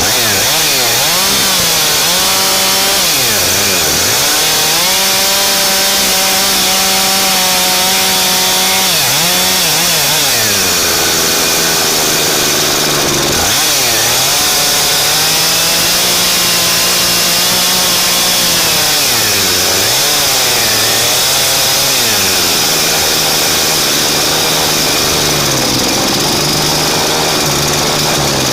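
Husqvarna two-stroke chainsaw at close range, revving up from idle and running near full throttle, its pitch sagging sharply and recovering several times.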